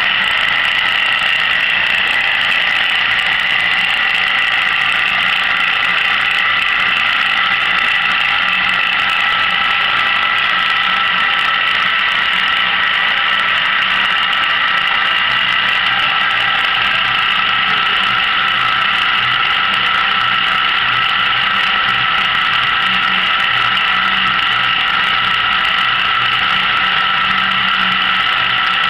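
A row of small electric gear motors turning rotisserie skewers over a charcoal grill, running with a steady whirring whine and a low hum.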